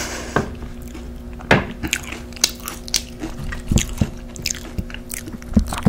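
Close-up crunching and chewing of nacho tortilla chips: irregular sharp crunches with moist chewing between bites.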